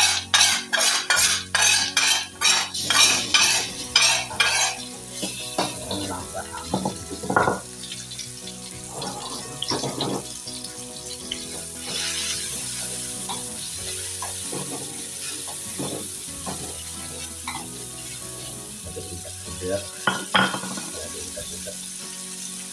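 A spatula scrapes spice paste out of a bowl into hot oil in an aluminium wok, in quick sharp strokes about two or three a second for the first five seconds. Then the paste sizzles steadily as it is stirred, with now and then a knock of the spatula against the wok.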